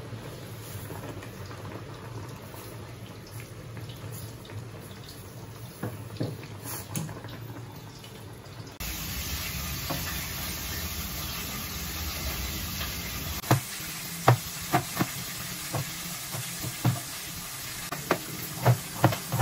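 Okra boiling in a pot of water, stirred with a fork. Then, over a steady hiss, a kitchen knife chopping an onion on a cutting board: separate sharp knocks at an uneven pace, coming faster near the end.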